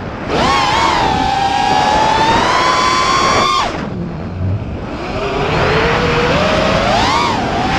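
FPV quadcopter's DYS 2306 2500kv brushless motors and props whining, the pitch rising and falling with the throttle over a steady rush. The whine falls away sharply about three and a half seconds in, then comes back low and climbs to a high peak near the end.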